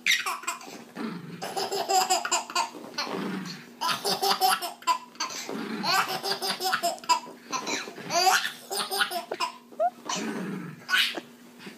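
A baby laughing in short bursts, one after another.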